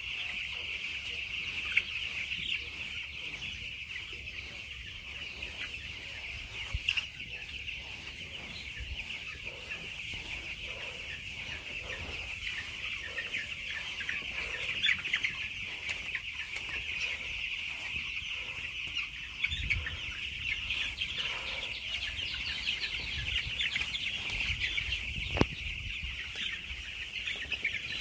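A large flock of chickens calling: a steady, dense chatter of many overlapping high-pitched cheeps and clucks. A single sharp knock sounds near the end.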